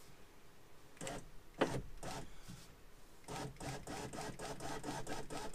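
BMW E39 rear power window motor running, driving the glass along the newly fitted regulator: a steady, pulsing whir that starts about three seconds in. It is preceded by a couple of short handling clicks and rustles.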